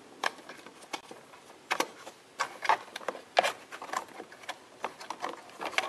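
Irregular small plastic clicks and knocks as wiring connectors are unplugged from an aftermarket parking-sensor control box and the box is pulled out of a plastic trim compartment.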